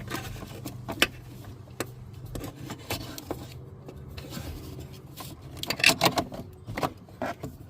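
Hand work on a van's shifter cable being fed through the floor: scattered clicks, knocks and scrapes, loudest in a quick cluster about six seconds in, over a steady low hum in the first half.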